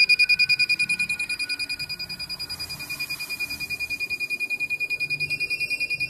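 Electronic buzzer of an Arduino ultrasonic anti-theft alarm sounding a high-pitched tone that pulses rapidly, about ten beeps a second, dipping somewhat in loudness about two seconds in. The alarm is triggered: the ultrasonic sensor has detected something closer than its 12 cm set point.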